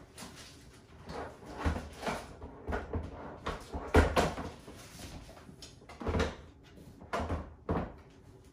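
Hollow plastic knocks and clunks from an infant car seat being handled and fitted, a series of irregular bumps with the loudest about four seconds in.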